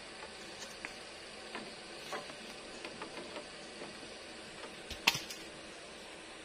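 Cut bamboo poles knocking and clacking against each other and the bamboo crossbar as they are shifted by hand: scattered light knocks, with one sharp, louder clack about five seconds in, over a steady hiss.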